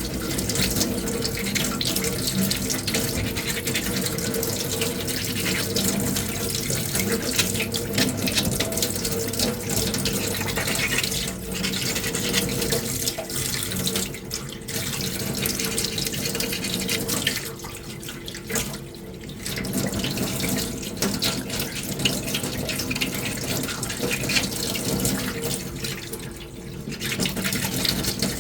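Sandpaper rubbing steadily over a small putty-coated armour finger piece, smoothing the filler coats. There are brief pauses around two thirds of the way in and near the end.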